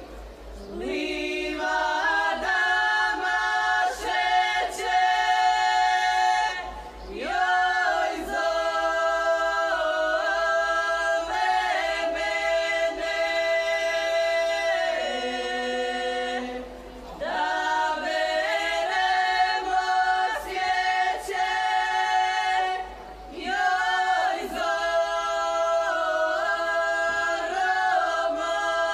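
Group of women singing a traditional Croatian folk song unaccompanied, in long phrases of held notes that each start with a short upward slide, with brief pauses for breath between phrases.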